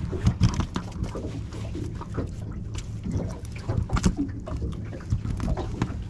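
Irregular clicks, knocks and rustling from handling a small pinky snapper in a landing net while it is unhooked with pliers, over a steady low hum.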